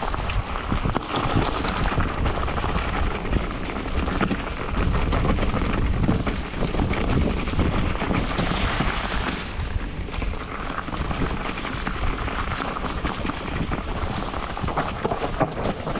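Mountain bike descending a dirt trail covered in dry fallen leaves: wind buffeting the microphone, tyres rushing through the leaves and the bike clattering over bumps.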